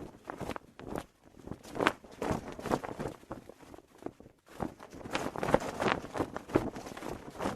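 Cloth flag flapping, with irregular snaps and flutters that ease off briefly about a second in and again around four seconds in.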